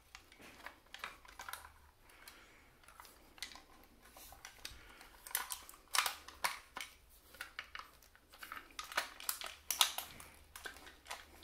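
Irregular clicks and knocks of a CYMA CM.009 airsoft M16 being handled as its upper receiver is worked free of the lower, busiest in the second half.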